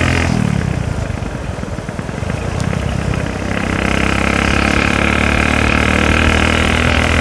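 Motorcycle engine on the move: just after the start the revs fall away, and the engine runs roughly and unevenly at low revs for about three seconds. It then picks up again and runs steadily from about three and a half seconds in.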